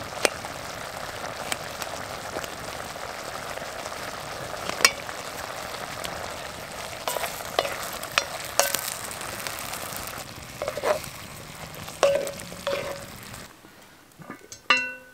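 Stew bubbling and sizzling in a Dutch oven hung over a campfire, with sharp crackles and pops from the burning wood. About 13.5 s in the sound drops away suddenly, leaving a short pitched sound near the end.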